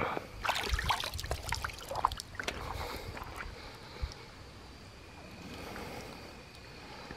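Water splashing and dripping as a stringer of bass is lifted out of the lake, with a flurry of knocks and clatter over the first three seconds. After that, quieter lapping water with faint steady high tones.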